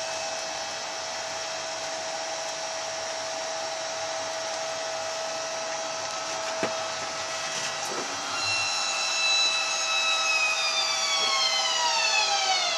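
Citymobil 2 automated shuttle's electric drive running with a steady hum and hiss. About eight seconds in, a whine of several tones starts and falls steadily in pitch as the vehicle slows. A single click about six and a half seconds in.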